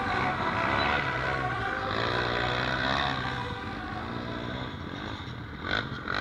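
Quad bike engines revving up and down as the ATVs drift in circles on loose gravel, the pitch rising and falling continually. There is a brief louder burst of throttle near the end.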